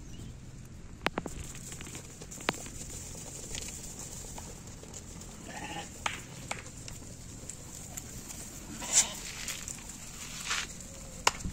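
Bannur sheep bleating a few times, with a short call about halfway through and a louder one a little later. Scattered sharp clicks sound in between.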